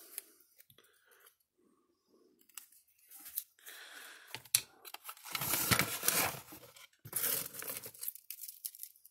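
Workbench handling noises: a couple of nearly quiet seconds, then a run of irregular scrapes, rustles and clicks, loudest a little past halfway. They come from a new plastic clamp being handled and the opened metal case of a fence energizer being tipped onto its side.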